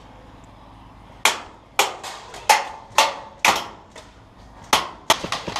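Airsoft gunfire: a string of sharp cracks starting about a second in, spaced roughly half a second apart, then quickening into a rapid run near the end.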